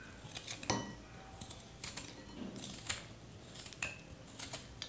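Hand-held vegetable peeler scraping the brown skin off a piece of fresh coconut meat in short, quick strokes, about eight in a row.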